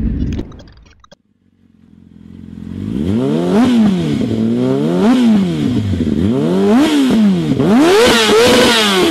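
Motorcycle engine revved again and again, its pitch climbing and dropping about every second and a half; it fades in after a brief silence that follows traffic noise cutting out at the start.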